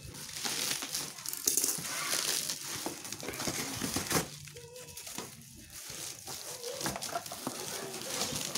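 Bubble wrap and cardboard packaging crinkling and rustling as a parcel is pulled open by hand, with many small crackles. It is loudest in the first few seconds, then settles into softer rustling.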